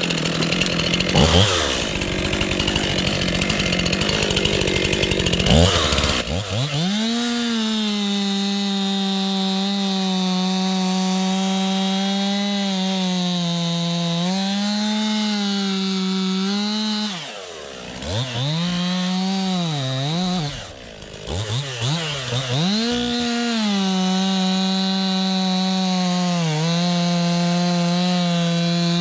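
STIHL MS 261 two-stroke chainsaw running at high revs, cutting into birch wood. It holds a steady high pitch under load, drops off the throttle twice past the middle and picks back up.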